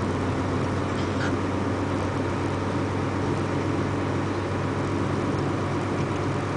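Steady engine and road noise of a moving vehicle, a constant low hum that holds an even level throughout.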